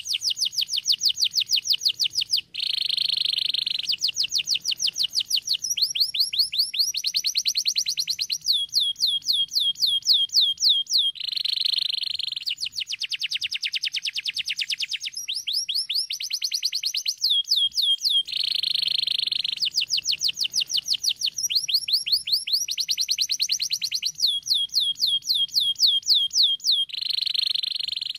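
Domestic canary singing a long unbroken song of fast trills, switching every second or two between quick repeated notes and buzzy rolls.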